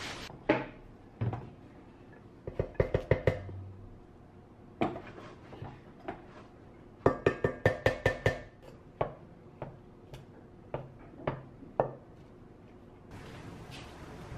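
Wooden rice paddle scooping rice from a rice cooker's inner pot and knocking against the rims of the cooker pot and a large pot, in scattered clusters of sharp taps with a slight ring. The quickest run, about ten taps, comes about seven seconds in.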